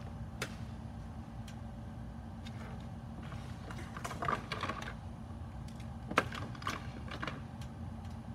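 Scattered light clicks and rustling from small electronics and wires being handled on a silicone bench mat, with one sharper click about six seconds in, over a steady low hum.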